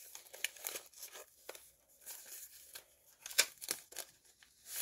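Paper rustling and crinkling as a folded white sheet is handled and opened out, in scattered short crackles with a longer rustle near the end.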